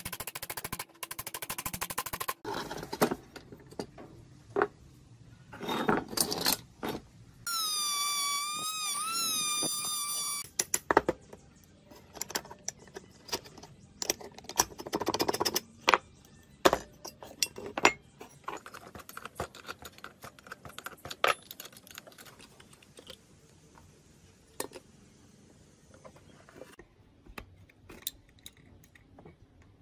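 Rusty steel parts of an old air foot pump being worked apart by hand: a rotary tool whirs for the first couple of seconds, then scattered metal clicks, scrapes and knocks follow as the rod, pivot pin and gauge are handled with pliers. About a quarter of the way in, a wavering squeal lasts about three seconds.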